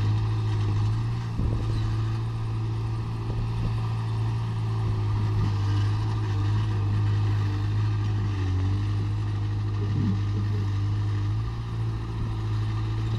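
Steady low drone of a vehicle running, with no change in pitch.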